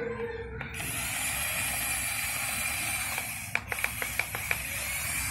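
Small electric motors and plastic gearbox of a toy RC excavator whirring steadily, with a quick run of about six clicks about three and a half seconds in.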